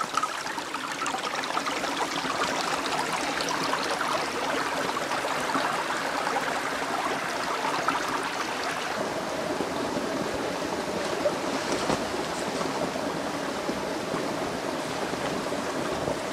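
Small forest stream flowing steadily, an even babbling and trickling of water.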